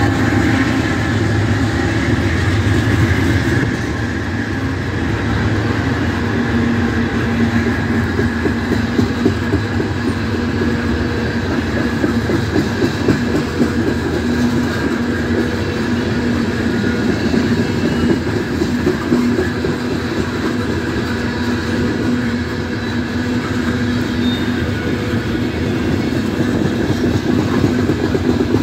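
Norfolk Southern coal train rolling past at close range: a steady rumble of hopper-car wheels clacking over the rail joints. A deeper diesel locomotive hum is heard in the first few seconds and then gives way to the cars.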